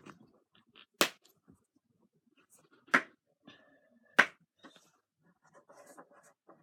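Slime being put back into its plastic container: three sharp smacks, about a second in, at three seconds and just after four seconds, with faint small crackles and clicks between them and near the end.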